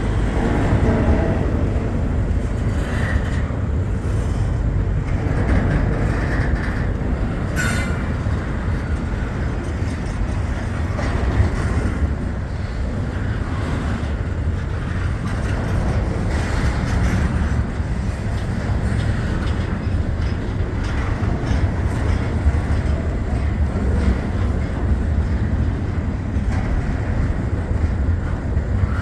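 Long Norfolk Southern freight train rolling past, a steady low rumble of wheels on rail, with a brief high-pitched squeal about eight seconds in.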